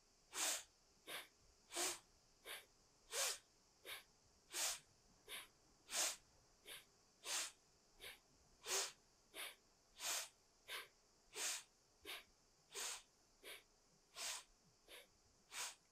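Rhythmic, forceful breathing, sharp inhales and exhales in turn about three every two seconds, stronger and weaker breaths alternating. This is Kundalini yoga breathing, each inhale and exhale paired with a shift of the waist to one side and then the other.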